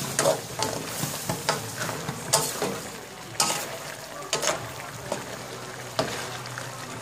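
Bitter gourd and pork sizzling in a nonstick wok, stirred with a wooden spatula whose scrapes and knocks against the pan come at irregular intervals over a steady frying hiss.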